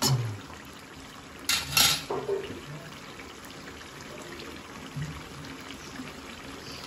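Chicken curry bubbling and sizzling in oil in an aluminium kadai, the water cooked off and the oil risen to the top. A metal ladle knocks against the pan once at the start and twice more between one and a half and two seconds in.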